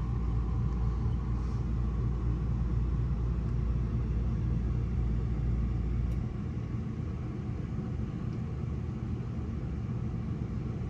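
Strong dust-storm wind making a steady low rumble. The deepest part of the rumble eases about six seconds in.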